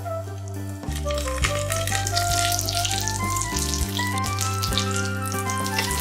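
Zucchini frying in a pan, a steady sizzle with dense crackling that grows stronger about a second in, under background music with a melody and bass.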